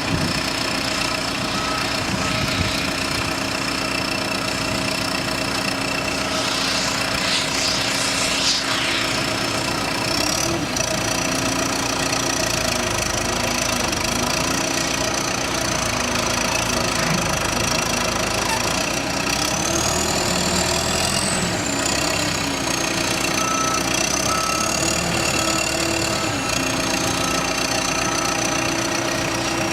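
2008 John Deere backhoe's diesel engine running steadily, its pitch rising and falling a few times in the second half as the engine speed changes.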